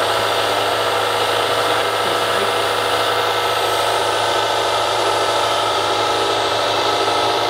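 Hydraulic button-rifling machine running with a steady, unchanging hum and low drone as it draws the rifling button through a rifle barrel's bore to engrave the rifling.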